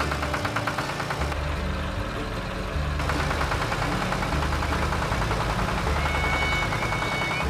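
Combine harvester engine running, with a fast, even mechanical clatter and a low pulse repeating about every second and a half. A steady high whine joins about six seconds in.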